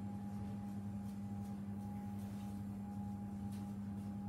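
Steady low electrical hum, one unchanging pitch with a fainter higher overtone, with a few faint light ticks.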